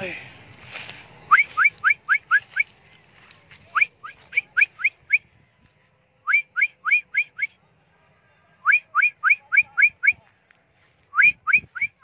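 A person whistling to call a lost pet budgie back: five runs of quick, rising whistle notes, five or six notes to a run, with short pauses between runs.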